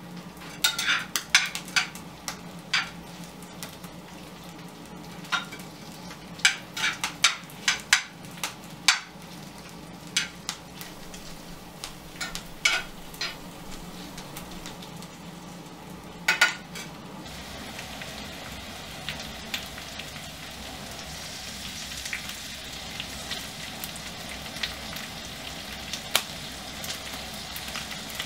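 Potatoes and chicken frying in a cast-iron skillet on a brick stove's iron hob, with a utensil scraping and knocking against the pan through roughly the first half, then a steady sizzle.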